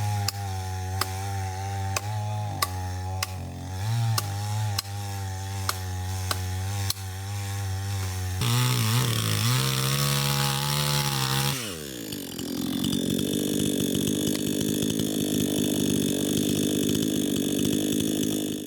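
Two-stroke chainsaw running at low revs with a regular ticking, then revved up about eight and a half seconds in. Its pitch falls sharply around twelve seconds in, and it then runs steadily at high revs.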